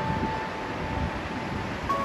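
A steady rushing noise, with wind buffeting the microphone, under soft sustained music notes that move to a new pitch near the end.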